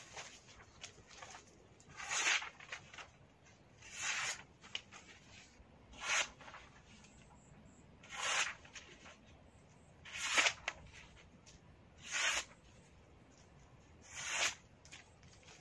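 Steel blade of a Chu Jian sword slicing through a hand-held sheet of paper, which tests the edge's sharpness. Each cut is a short, crisp hiss, seven cuts about two seconds apart.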